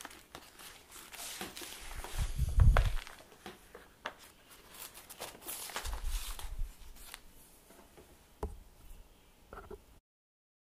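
Pages of a handmade notebook of stiff dyed paper and parchment being turned and handled: dry rustling and crisp page clicks, with a few low thumps of the book being handled, the loudest about two to three seconds in.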